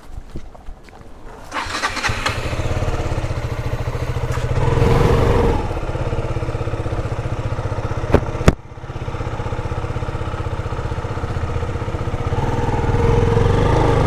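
Motorcycle engine starting about two seconds in and settling into a steady idle, with a brief rev about five seconds in. Two sharp knocks come a little after eight seconds, and the engine picks up again near the end.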